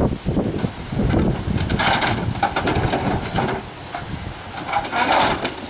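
Old car parts being shifted and lifted out of a loaded trailer: short scraping and clattering rustles about two, three and five seconds in, over wind rumbling on the microphone.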